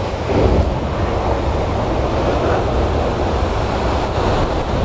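Rough sea surf breaking and washing over rocks, a steady rush of waves that swells briefly about half a second in.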